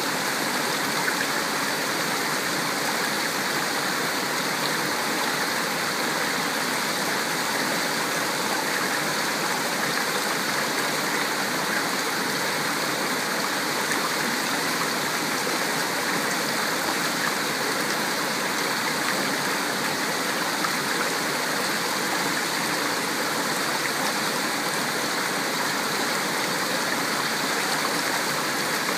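Shallow rocky stream rushing and gurgling over boulders in a steady, unbroken wash of water.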